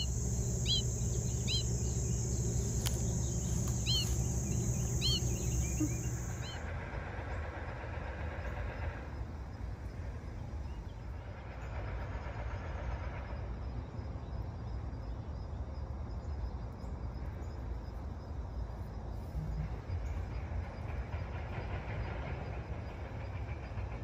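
Outdoor ambience at the mist nets: a steady low rumble like distant traffic or machinery. In the first six seconds a steady high hiss and short bird chirps, repeated about once a second, sit over it; after that the rumble goes on more quietly.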